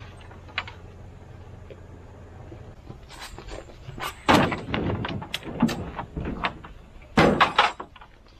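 A plastic crate of lion's mane mushrooms tipped out into the steel bed of a small truck: a run of clattering knocks and thuds as the clumps and the crate hit the metal, then a second loud burst of knocks near the end. A steady low hum runs for the first few seconds.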